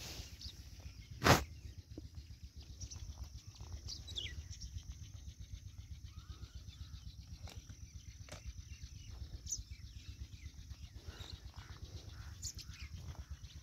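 Birds chirping here and there over a steady low rumble, with one sharp knock a little over a second in.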